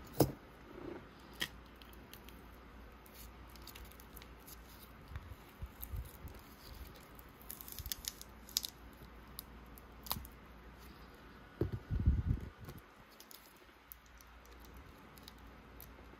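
Handling noises of a phone being worked on with small hand tools: scattered light clicks and taps, with a short run of louder low knocks about twelve seconds in.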